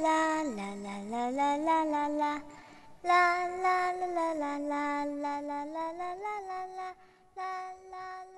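A child's voice singing a slow, wordless tune in long held notes that step up and down in pitch, in three phrases with short breaks between them.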